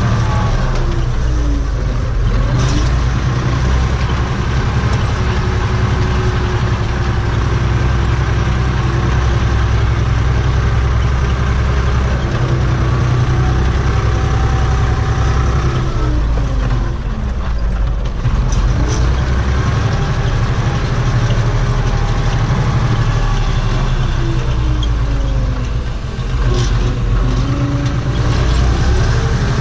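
Steyr 964 Turbo tractor's diesel engine running steadily under load, heard inside the cab, with a whine that dips in pitch and comes back up twice, about halfway through and near the end. A few short clicks are heard over it.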